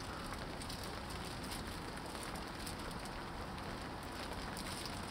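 Steady rain falling, an even patter.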